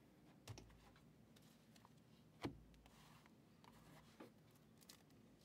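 Near silence with a few faint clicks and taps as a stack of sleeved trading cards is picked up and handled on a table. The clearest tap comes about two and a half seconds in.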